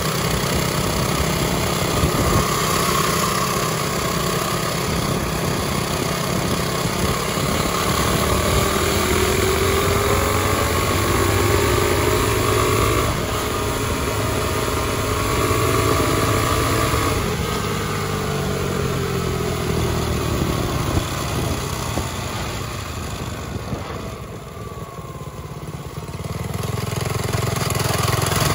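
Mini bike's small four-stroke engine running hard under way, with steady road and wind noise. The engine's pitch climbs as it accelerates, then falls away as it slows about two-thirds of the way through, and picks up again near the end.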